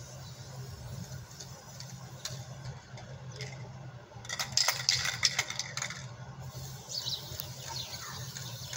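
Aerosol spray can being shaken, its mixing ball rattling in quick clicks for about two seconds midway, over a steady low hum.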